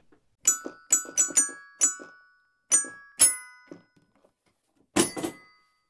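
Short musical jingle of ringing notes with sharp starts, about seven quick notes in the first three seconds, then one more after a pause near the end.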